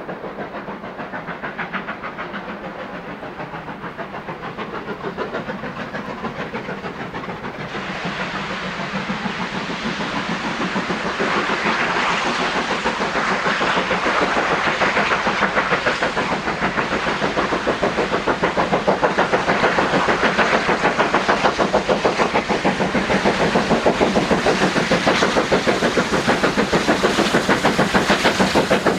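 Double-headed steam locomotives, BR Standard Class 7 4-6-2 No. 70000 Britannia leading, working a passenger train under steam. A rapid, continuous beat of exhaust chuffs grows steadily louder as the train approaches.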